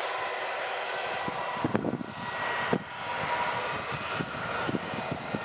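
Distant jet engine noise from a departing four-engine Airbus A380, a steady noise with faint steady whines. Two sharp knocks come about two seconds in and again a second later.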